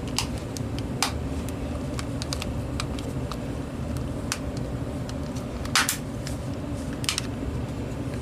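Scattered light clicks and snaps of a cordless phone handset's plastic case being split apart, the loudest snap about six seconds in, over a steady low hum.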